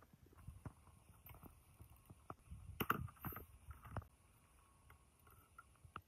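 Scattered light knocks and clinks of metal parts and hand tools being handled on a workbench, as a hex socket bit works on the compressor's bolts and a steel bracket is fitted onto a steel cylinder shell. The sounds come at irregular intervals, with the loudest cluster about halfway through.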